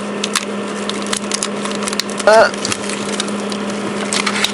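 A steady low electrical hum with scattered light clicks and taps, and a short vocal sound about two seconds in.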